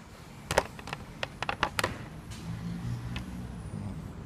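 Clicks and knocks of plastic and metal from a Bosch GKT 55 GCE track saw's bevel-tilt mechanism as its lock knob is turned and the saw body is tilted over on its guide rail. The clicks come in a quick cluster in the first two seconds.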